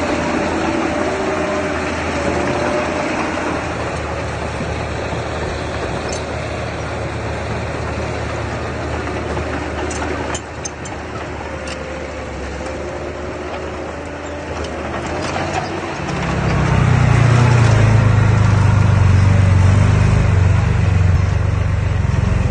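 Diesel engine of earthmoving machinery running steadily, with a few faint clicks near the middle. About three-quarters of the way through, a deeper and louder engine note comes in and holds.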